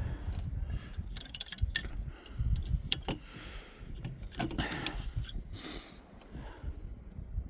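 Metal hand tools clinking and rattling in a run of sharp clicks as a wrench or socket of the right size is picked out and fitted, with rustling and a low wind rumble on the microphone.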